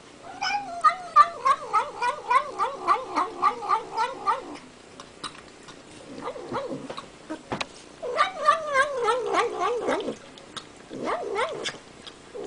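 Domestic cat making rhythmic wavering meow-like calls while it eats, pulsing about three to four times a second. The calls come in several bursts, the first and longest lasting about four seconds, with a few sharp clicks between bursts.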